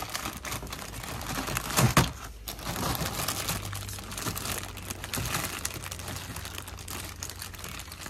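Thick polythene bag crinkling and crackling as it is pulled and torn open by hand, with the loudest rustle just under two seconds in.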